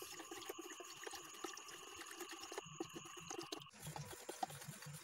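Plastic spoon stirring a liquid in a plastic tub: faint sloshing with small irregular ticks of the spoon. The liquid is aqua regia holding dissolved gold, stirred after sodium metabisulfite is added so that the gold will precipitate.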